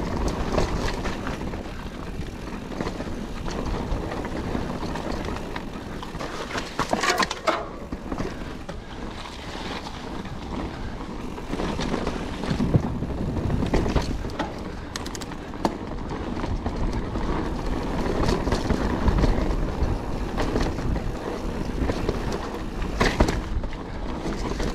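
Calibre Triple B mountain bike ridden fast down a dirt trail: a steady rumble of tyres on dirt with the bike rattling over the bumps, and several sharp knocks.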